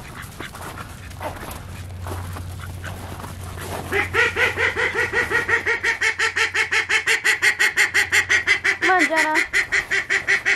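Ducks quacking in a fast, regular run of loud calls that starts about four seconds in and keeps going, with another call sliding in pitch near the end. Before that there is only a low steady rumble.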